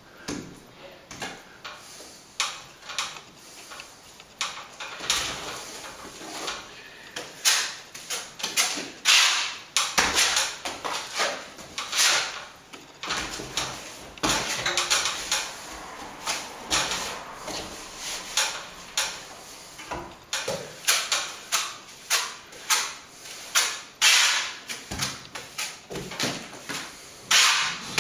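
Hand trowel scraping sand-and-plaster mix off a hawk and working it into a wall chase: irregular rasping scrapes, about one or two a second, some louder than others.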